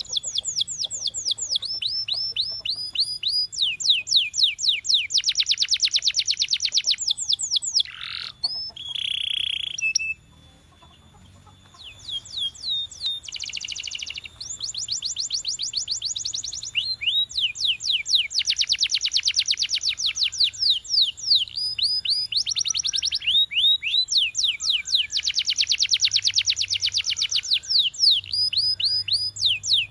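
Domestic canary singing in fast trills: long runs of quickly repeated, sweeping high notes that change from one tour to the next, with a short pause about ten seconds in.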